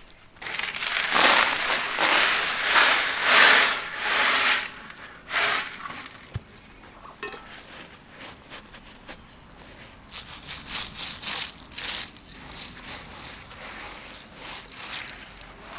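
Fine gravel tipped out of a bucket onto the ground in a loud crunching rush lasting about four seconds. Then the gravel is spread by a gloved hand in short, scratchy rustles.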